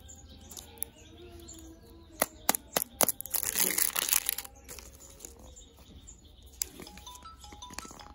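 Plastic wrapper being pulled off a plastic candy surprise ball: a few sharp clicks and snaps, then a second or so of crinkling, with lighter clicks later as the ball is twisted. Soft music plays underneath.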